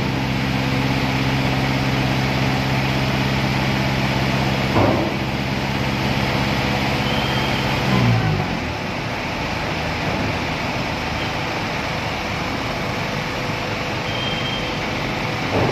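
Vehicle engines running in a ferry's enclosed car deck, a steady rumble, with one nearby engine's hum sliding down and stopping about eight seconds in. A short thump comes about five seconds in.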